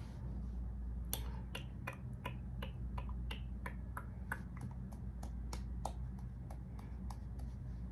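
A string of light, sharp clicks or taps, irregular at roughly three a second, over a steady low hum.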